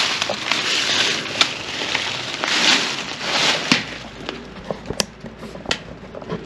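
Footsteps pushing through undergrowth, with rustling and crackling of brush and sharp snaps of twigs; the rustling dies down in the last couple of seconds, leaving a few scattered snaps.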